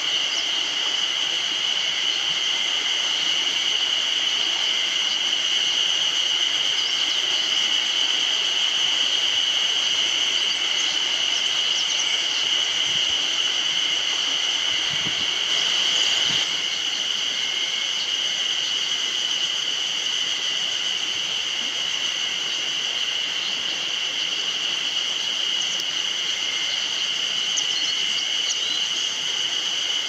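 A chorus of spring cicadas singing, a steady, high-pitched buzzing drone that does not let up.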